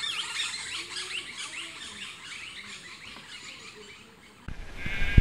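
Many birds chirping and twittering at once, a dense stream of short, quick high calls. Near the end it cuts abruptly to a sheep starting to bleat.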